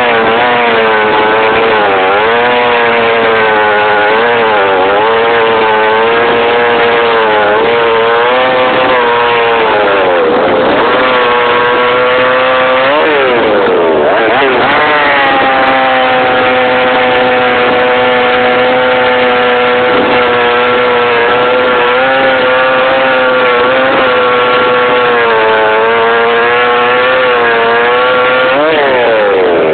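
Poulan 3400 two-stroke chainsaw engine running, its speed wavering and sagging then picking back up a few times. It is running rich ("pretty fat") and needs more carburettor tuning.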